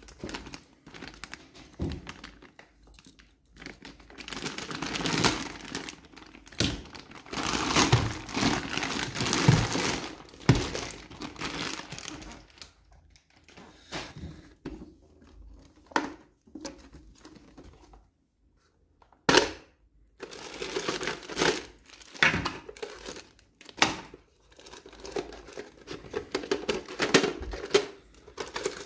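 Clear plastic packaging bag crinkling and rustling as it is pulled open and off a hard plastic toy popcorn bucket, with scattered clicks and knocks of the plastic parts being handled and a brief pause about two-thirds of the way through.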